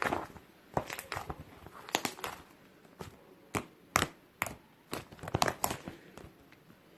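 Slime being squeezed and pressed by hand, making irregular sharp pops and crinkly crackles, about a dozen in all.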